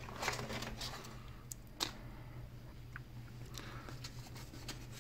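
Faint scattered clicks and light rustling, the sharpest click a little under two seconds in, over a steady low hum.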